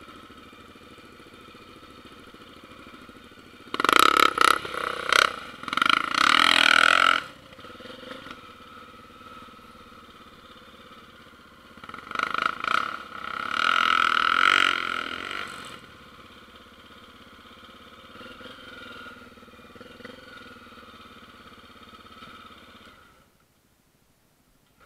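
Honda single-cylinder four-stroke trail motorcycle engine running while riding, with two loud surges of revving, the first about four seconds in and the second about twelve seconds in. The sound cuts away shortly before the end.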